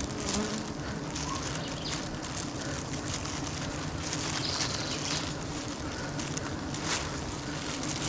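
Steady hum of a swarm of wild honeybees massed on an open comb on a tree trunk, with wind on the microphone and a few brief rustles as the comb is cut.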